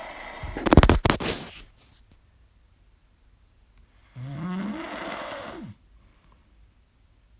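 A person snoring loudly. A loud, rattling snore comes about a second in, then after a quiet pause a second snore about four seconds in, its pitch rising as it goes.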